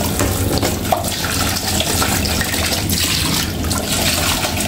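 Kitchen tap running steadily into a stainless steel sink while a plastic food container is rinsed under the stream.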